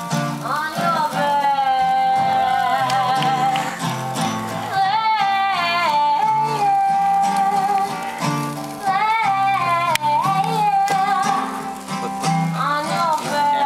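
A live acoustic duo playing: strummed acoustic guitar under a high singing voice holding long notes with vibrato.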